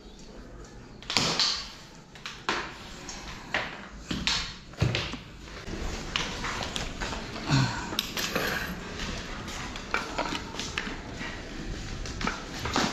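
Handling noises: a power cord being gathered and carried and a plug being fitted into an extension cord reel, heard as scattered clicks, knocks and rustles with no motor running.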